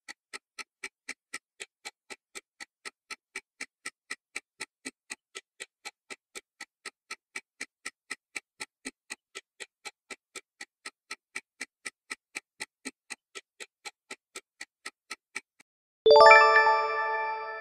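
Countdown-timer sound effect: a fast, even clock-like ticking that stops just before a bright bell-like chime rings out near the end and fades, marking time up.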